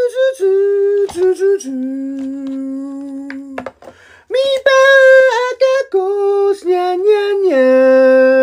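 A voice humming or singing a short wordless tune of long held notes that step down to a long, low held note. The phrase breaks off briefly about four seconds in and is then sung again.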